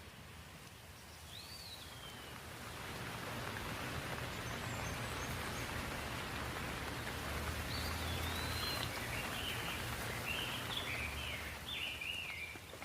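Steady rain falling, growing louder over the first few seconds and easing near the end. A bird calls about a second in, and several short chirps come in the second half.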